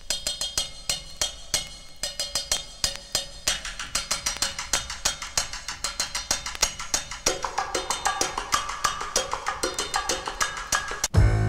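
Percussion break from an old vinyl record: a fast, even rhythm of sharp drum and percussion hits, with a pitched melodic line joining about seven seconds in. It cuts abruptly to a louder, fuller track just before the end.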